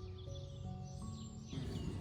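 Soft background music of held notes that step from one pitch to the next, with outdoor background noise rising underneath about three-quarters of the way through.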